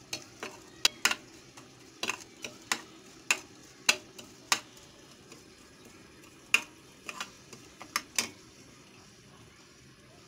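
A metal spoon clinking and scraping against a plate while stirring a coarse spice stuffing mix for green chillies: a dozen or so sharp, irregular clicks that stop about eight seconds in.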